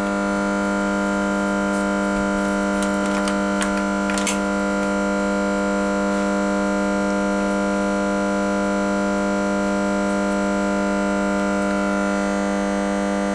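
A steady electrical hum with many overtones. A few light clicks and taps come about three to four seconds in, as the compression tester is handled and fitted into a spark plug hole.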